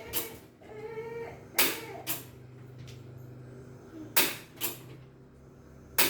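A domestic cat meows once, an arching call about a second in, among several sharp clicks and knocks that are louder than the meow. A low steady hum runs underneath from about a second in.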